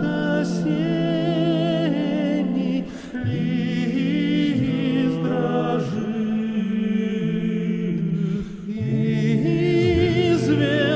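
Singing of a slow Russian folk song, with long held notes and wavering vibrato. There are short breaks about three seconds and eight and a half seconds in.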